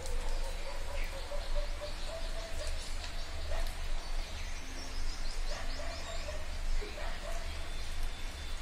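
A person biting and chewing a fried-egg omelet eaten by hand, with short wet mouth clicks over a steady low hum. A bird chirps a quick run of high notes about three seconds in.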